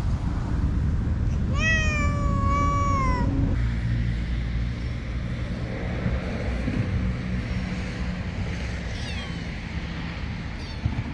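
A domestic cat gives one long, drawn-out meow about two seconds in, rising slightly and then falling away. A fainter, short call follows near the end, all over a steady low rumble.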